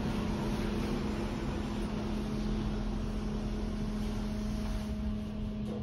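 Kone lift car travelling downward: a steady hum with a constant low tone.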